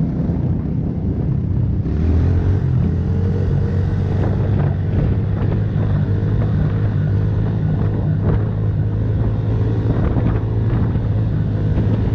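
Pit bike engine running steadily under way, picking up a little about two seconds in, with wind buffeting the helmet-mounted microphone.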